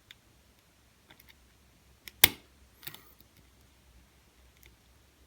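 Lock pick and tension wrench working the pins of a JJ80 challenge lock: faint scattered ticks, one sharp metallic click a little over two seconds in and a softer pair of clicks just after.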